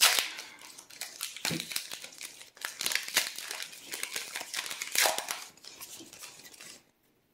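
Foil Pokémon booster pack wrapper crinkling and tearing open, with the pulled cards being handled; the crackle stops shortly before the end.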